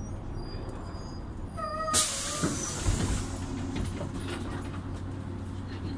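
Volvo Carrus city bus heard from inside, its engine humming low and steady. About a second and a half in there is a short squeal, then a sudden hiss of air that fades over about a second, with a few knocks.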